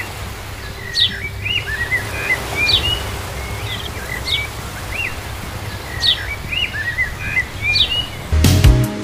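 A songbird singing a short chirping phrase, a sharp falling note followed by a few arched notes, repeated about every one and a half to two seconds over a low steady rumble. Music cuts in near the end.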